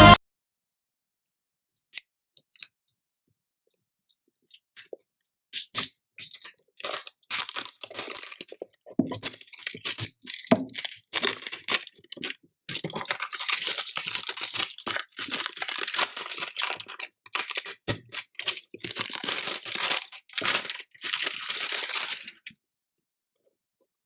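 Packaging being torn open and crinkled by hand: irregular rustles, crackles and tearing that start a few seconds in, grow denser in the second half and stop shortly before the end.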